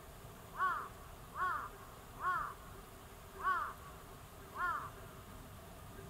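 A bird calling five times, short calls each rising then falling in pitch, spaced about a second apart.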